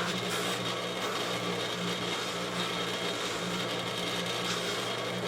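Electric buffing wheel motor running at a steady speed, a constant hum and whir with no change in pitch.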